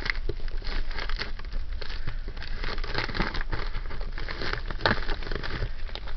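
A plastic bag full of jewelry crinkling and rustling with many small crackles as it is cut open and handled.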